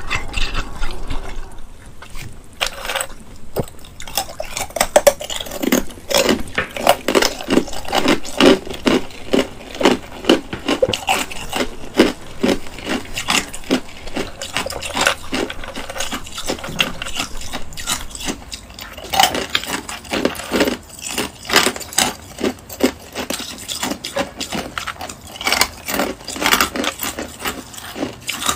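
Close-miked biting and chewing: a dense run of crisp crunches and clicks with brief pauses.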